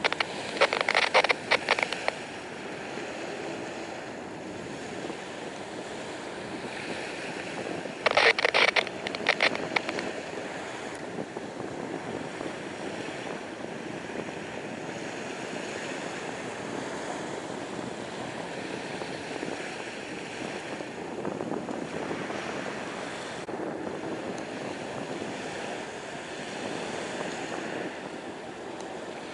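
Steady wind and water noise, broken by two loud bursts of rapid crackling lasting a couple of seconds each: one at the start and one about eight seconds in.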